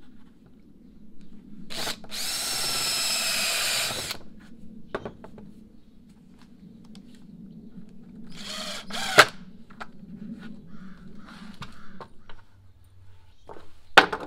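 Cordless drill with a countersink bit boring into plywood: a run of about two seconds with a rising whine, then a shorter run near the middle that ends in a sharp click. A sharp knock near the end.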